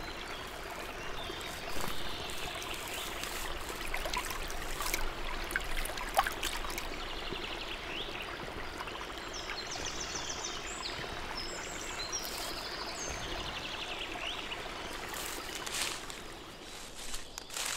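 Small forest stream trickling and gurgling steadily over logs, with short rapid high calls of small birds now and then and a few sharp clicks and knocks.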